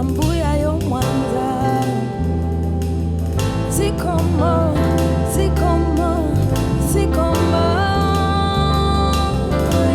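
Afro-soul song played live: a woman's lead vocal over band accompaniment with a moving bass line. She sings ornamented phrases, then holds one long note through the last couple of seconds.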